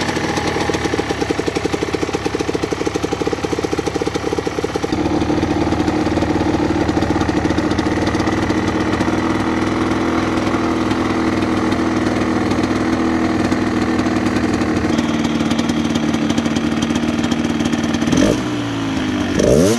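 Yamaha DT 125's two-stroke single-cylinder engine, fitted with a Giannelli exhaust, idling steadily, its tone changing about five seconds in. Near the end the throttle is blipped twice in quick revs.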